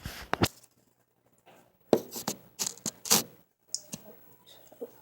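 Hands handling an object, giving short rustling and scraping noises in two bursts, at the start and about two to three seconds in, with a single click near four seconds.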